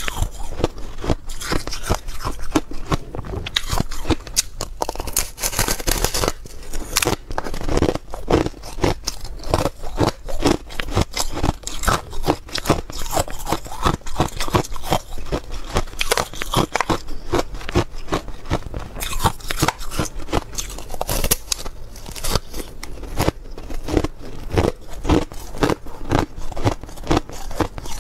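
Frosted ice being bitten and chewed, a dense run of sharp crunches and crackles with no pause.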